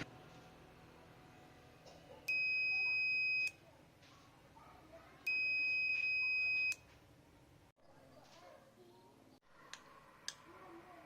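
Two long, steady electronic beeps, each just over a second, the first about two seconds in and the second about three seconds later. Faint small clicks follow near the end.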